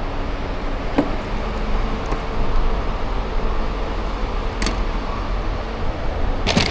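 Maserati GranCabrio's Ferrari-derived 4.7-litre V8 running steadily at low revs, a low rumble with no revving. A few sharp clicks cut through, with a louder short clatter near the end.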